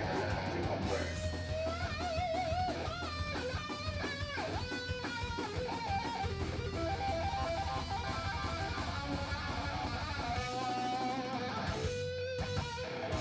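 Heavy metal band playing live: an electric guitar lead line with bent, wavering notes over drums and bass. Near the end the drums and bass drop out for a moment, leaving a held guitar note.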